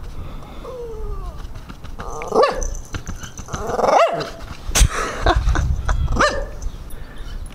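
A dog barking in several short, pitched barks a second or so apart, the loudest about four seconds in, with a growl in them.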